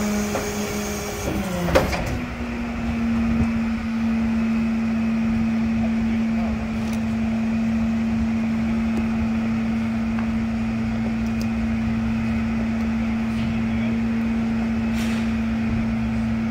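Flatbed tow truck's engine running at a steady idle, heard as a constant hum whose pitch dips briefly and comes back slightly higher about a second and a half in. There is a sharp knock just before the two-second mark, and a few faint clunks as the loading ramp boards are handled.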